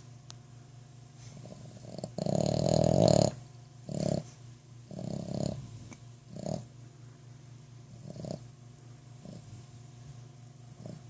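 Boston Terrier snoring: one long, loud snore about two seconds in, then a string of shorter, quieter snoring breaths at uneven gaps.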